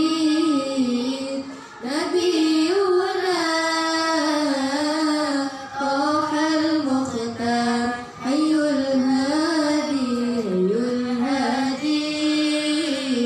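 A young woman sings solo into a microphone without accompaniment. The melody is ornamented and winding, with short breath pauses about two, six and eight seconds in.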